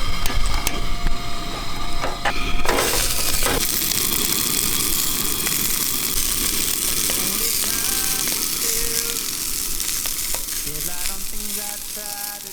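Food sizzling on a hot barbecue plate. The sizzle starts suddenly about three seconds in, after a few knocks and clicks, then holds steady, with faint musical notes coming in near the end.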